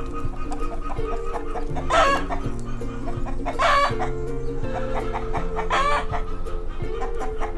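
Chickens calling, with three loud calls about two, four and six seconds in, over background music with a steady bass line.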